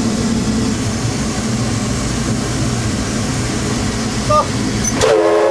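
Steady rumbling roar of steam locomotive No. 207, heard from inside its cab, with no clear beat to it. A short voice cuts in near the end.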